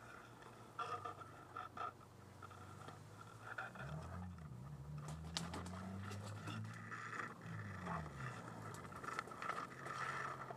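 Faint rustling and scraping of tall grass blades and gear close by, with scattered light clicks. Midway, a low hum rises and falls in pitch for a few seconds.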